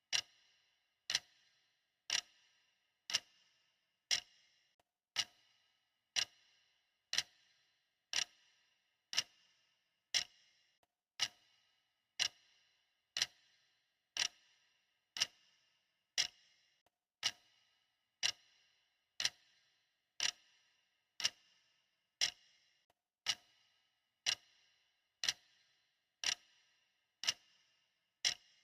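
A clock ticking steadily, one crisp tick a second, each tick with a short ring.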